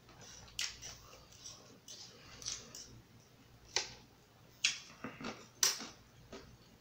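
Eating sounds: chewing rice, with wet mouth clicks and a plastic fork scooping on an electric griddle. A few sharp clicks stand out, the sharpest near the end as the fork is laid down on the griddle.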